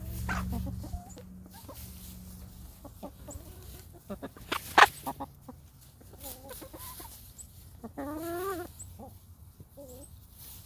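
Hens clucking softly while scratching in loose hay, with a longer wavering call about eight seconds in. A few sharp knocks come about five seconds in.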